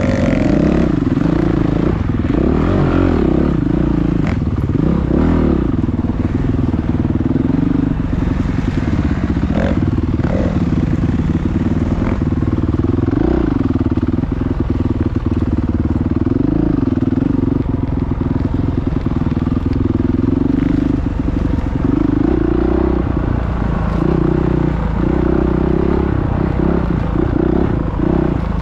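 Motocross bike engine running under load as it is ridden, its note rising and falling over and over as the throttle opens and closes.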